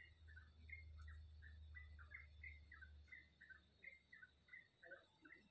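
Small birds chirping faintly, a steady run of short, high notes about four a second, with a low rumble underneath for the first three seconds.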